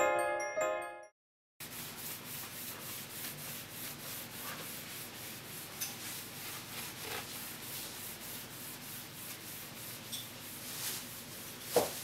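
Glockenspiel music fades out in the first second, then after a brief silence comes a steady scrubbing of a rag being wiped over a glass inking slab to clean off printing ink, with a few small knocks and one sharper knock near the end.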